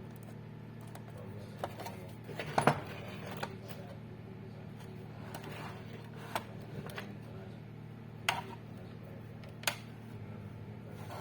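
Scattered clicks and light knocks of small hard objects being handled, at irregular intervals over a steady low hum; the loudest clatter comes about two and a half seconds in.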